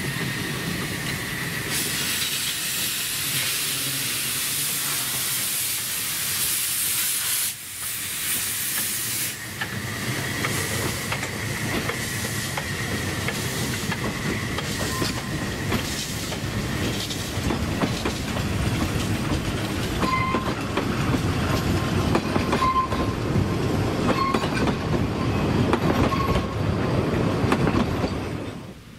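Saxon IV K narrow-gauge steam locomotive moving off with steam hissing. Its passenger carriages then roll past with a growing rumble and wheels clicking over the rail joints, with short wheel squeals in the last several seconds.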